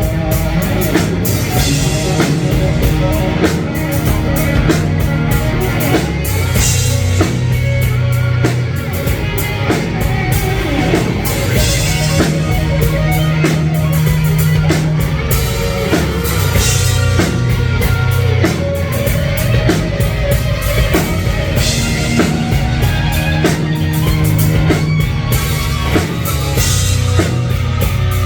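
Live rock band playing an instrumental passage: a drum kit keeping a steady beat with electric guitar and bass, loud throughout.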